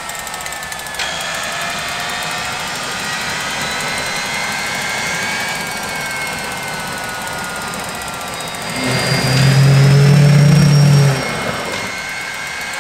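GTD-350 gas turbine spinning over without lighting: a steady turbine whine with several tones drifting slowly lower. About nine seconds in, a loud low buzz joins it for about two seconds, then stops.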